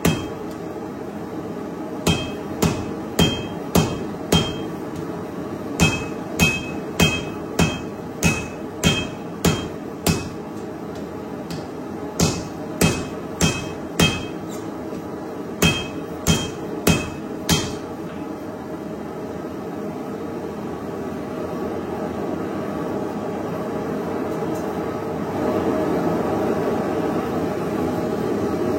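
Hand hammer striking a hot layered steel billet on an anvil to set its forge welds: about thirty blows in quick runs of three to six, each with a short metallic ring. The hammering stops about two-thirds of the way in, leaving a steady rushing noise that grows louder near the end.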